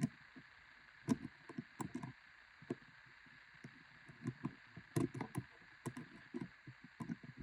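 Scattered small clicks and light knocks of a screwdriver and fingers working on a baitcasting reel while backing out a tiny screw, irregular and without rhythm.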